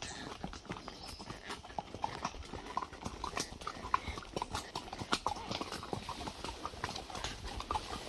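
Hooves of several ridden horses clip-clopping, an irregular run of overlapping clicks.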